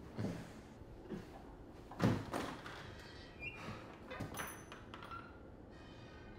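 A few soft knocks and thuds in a quiet room, the loudest about two seconds in.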